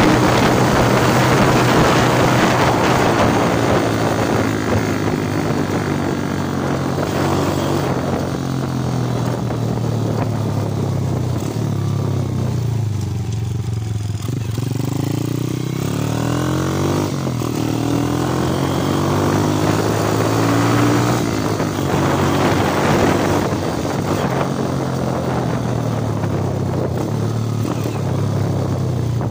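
Underbone motorcycle's single-cylinder engine running under way, its pitch dropping as the throttle eases about halfway through, then climbing again. Wind rushes over the microphone in the first few seconds.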